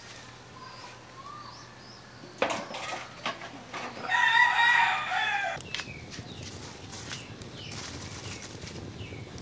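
Corrugated metal sheets clatter and knock as they are laid over a pit oven. Then a rooster crows once, for about a second and a half; this is the loudest sound. Small birds chirp faintly.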